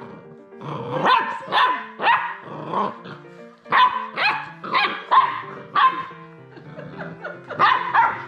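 Labrador retriever puppies barking during rough play, short sharp barks in quick runs with brief lulls about three seconds and about seven seconds in.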